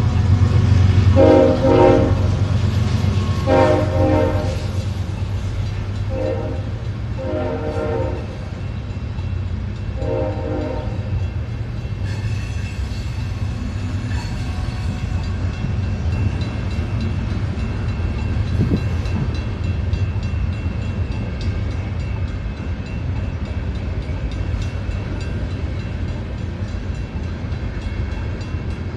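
Union Pacific freight train at a grade crossing: the lead diesel locomotive sounds its air horn in five blasts over the first ten seconds or so, the crossing warning, over the low rumble of the locomotives. After the horn stops, the steady rolling noise of the freight cars on the rails continues.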